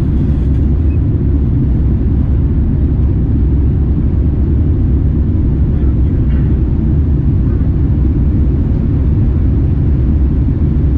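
Steady low rumble inside the cabin of a Boeing 787-9 airliner, from its engines and the airflow past the fuselage.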